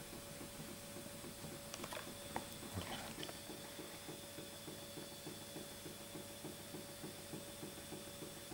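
Small model hot-air Stirling engine, built after Robert Stirling's 1816 design, running: its linkage ticks in a quick, even rhythm over a faint steady hum. A few sharper clicks come about two to three seconds in.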